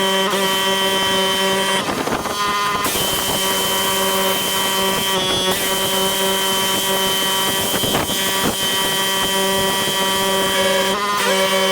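Pressure washer running: a steady engine or pump hum over the hiss of the water spray, with two short breaks in the hum.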